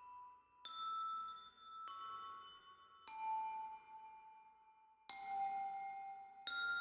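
Background music of slow, bell-like single notes. Five notes are each struck and left to ring and fade, a little over a second apart. The first four step down in pitch, and the last one, near the end, is higher.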